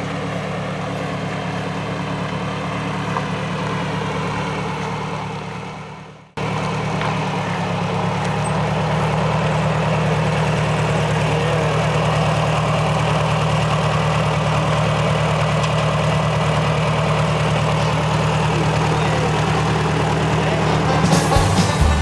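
Engine running steadily with a low, even hum. The sound fades and cuts off about six seconds in, then resumes at once and gets a little louder a couple of seconds later.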